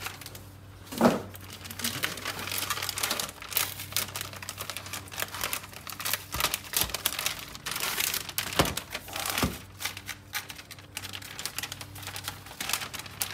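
A metallic anti-static bag crinkling and crackling as hands handle it, with a sharp knock about a second in and a few softer thumps later.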